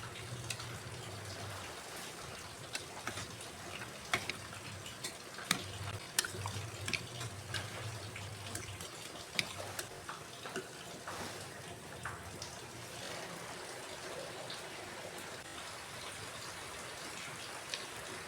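Water running and splashing in a kitchen, with scattered light clicks and taps, thickest in the first half.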